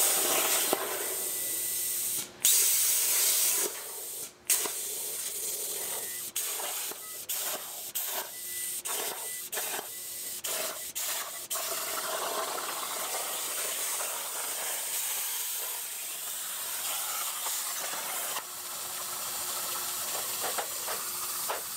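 CNC plasma cutter hissing as its torch cuts a thin metal sheet. It starts and stops in a quick string of short cuts, then runs longer and steadier for the second half.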